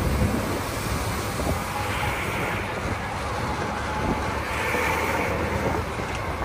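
Steady engine and road noise of a sightseeing tour bus in city traffic, heard from on board.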